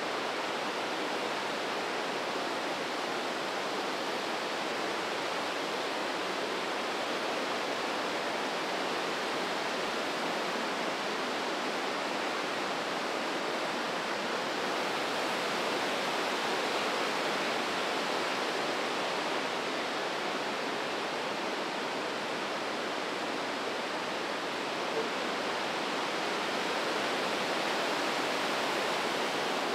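The Breitach mountain river rushing through its deep rock gorge: a steady, unbroken wash of fast water.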